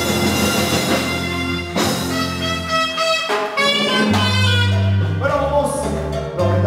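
Live dance band playing: an alto saxophone carries the melody over electric keyboard and electric bass, with the deep bass notes growing strong about four seconds in.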